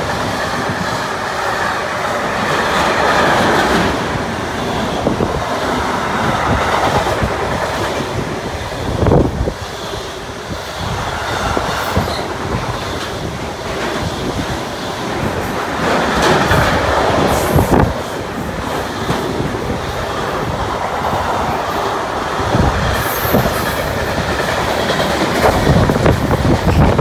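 Container freight train wagons rolling past at close range: a steady rumbling rush with the wheels clacking in irregular thumps, and a couple of brief high squeals.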